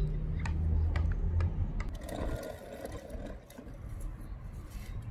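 A basketball bouncing on asphalt a few times in the first two seconds, then the rattling rumble of a toddler's plastic ride-on toy car rolling over asphalt.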